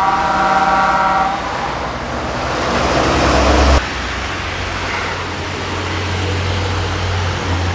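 A car horn sounds steadily for just over a second over road traffic. The rush of a vehicle passing then swells and cuts off suddenly, leaving a steady low rumble of motorway traffic.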